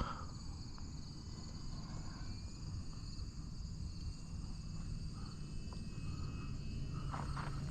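Steady insect chirring, high and pulsing, over a low wind rumble on the microphone.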